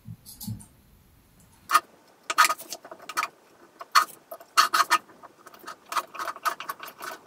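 Scissors snipping repeatedly, trimming excess fabric trim around a jar lid: a quick, irregular run of sharp clicks, starting about a second and a half in.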